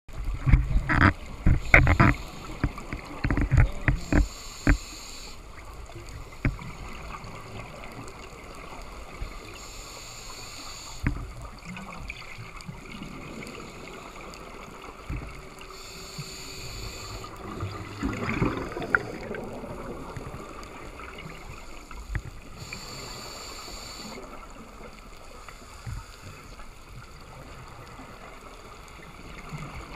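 Underwater sound of scuba breathing: a regulator hisses briefly on each breath, about every six or seven seconds, and a rumbling burst of exhaled bubbles comes a little past halfway. A cluster of knocks and clicks fills the first five seconds.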